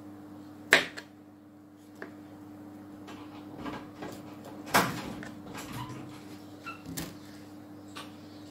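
Kitchen knife cutting broccoli florets on a plastic cutting board: a few sharp knocks of the blade striking the board, the loudest about a second in and another near five seconds, with soft rustling of the florets between. A steady low hum runs underneath.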